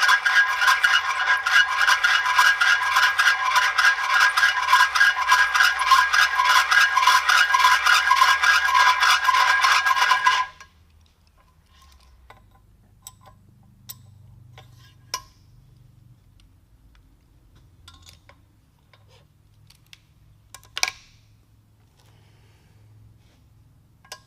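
Hand-turned valve seat cutter scraping around a valve seat in a Cummins 12-valve cylinder head, with a fast, even chatter and a ringing note: a light finishing cut with cutting fluid. It stops abruptly about ten seconds in, followed by a few faint clicks and one sharp tap near the end.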